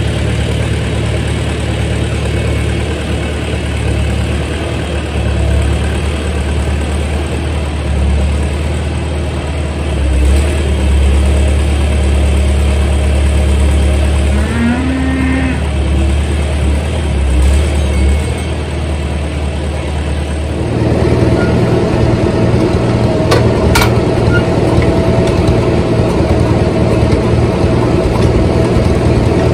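Farmall tractor engines running at idle. About two-thirds of the way through, the engine sound becomes louder and fuller as a tractor comes up close, with a couple of light clicks soon after.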